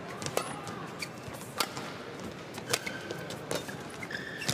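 Badminton rally: a racket hits the shuttlecock about once a second, five sharp strikes in all, with brief squeaks of court shoes on the court mat between them.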